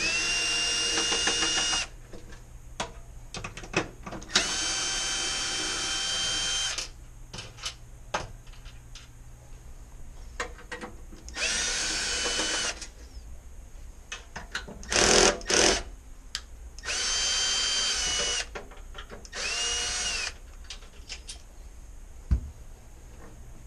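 A power drill-driver backing screws out of an oven door, run in about six short bursts of one to two seconds each. Each burst spins up and winds down with a steady whine, with small clicks and knocks of handling between them.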